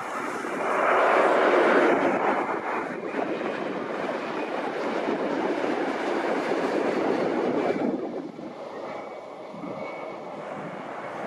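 Jet airliner engine noise, a steady rushing rumble that swells about a second in and eases near the end, with a faint turbine whine.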